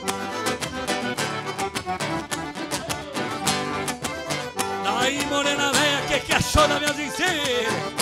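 Band playing lively gaúcho dance music with a steady strummed beat; about five seconds in, a melody line with sliding, wavering pitch comes in over it.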